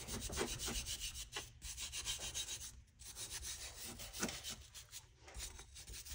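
A small hand brush scrubbing loose rust off an old open-end wrench in quick back-and-forth strokes, several a second, with brief pauses about three and four seconds in. This is a first cleaning pass before the tool goes into a rust-removal soak.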